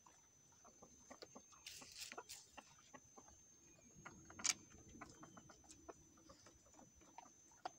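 A rooster pecking corn off a wooden board: faint, irregular taps, with one sharper tap about four and a half seconds in, and a few soft clucks.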